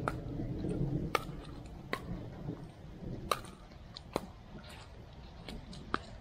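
A pickleball rally: about six sharp, hollow pops of paddles striking the plastic ball, roughly a second apart.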